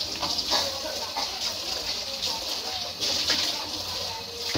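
Kitchen tap running steadily, the stream splashing over a raw whole chicken being rinsed by hand and into a plastic basin held under it.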